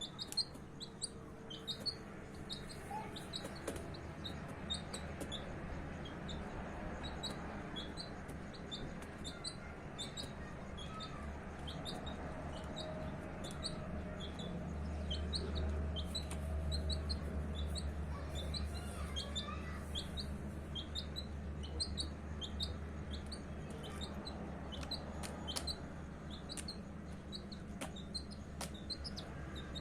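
Baby chicks peeping continuously, short high cheeps a few times a second, over a low steady rumble that swells midway.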